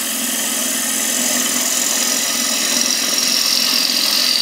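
Half-inch bowl gouge hollowing a wooden bowl spinning on a wood lathe at about 1300 RPM: a steady hiss of the cut, its pitch slowly falling, over a low hum.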